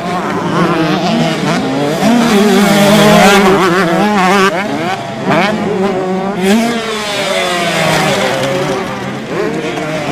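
Several 125cc two-stroke motocross bikes revving hard, their high engine notes rising and falling over and over as riders open and shut the throttle through the jumps, with the sounds overlapping.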